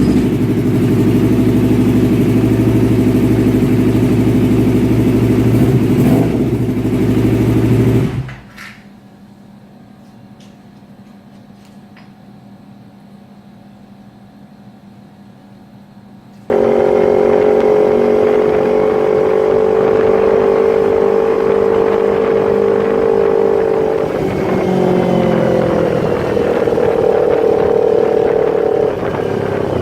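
Yamaha MT-25's 250 cc parallel-twin engine through a CLD X Monster aftermarket exhaust, running at a steady low speed, then cut off abruptly about eight seconds in. After a quieter stretch it comes back loud at higher, held revs, with small dips in pitch near the end.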